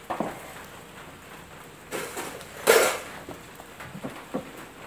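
A few separate knocks and clunks of wooden pieces being picked up and set down on a concrete floor, the loudest about two and a half seconds in, with lighter taps near the end.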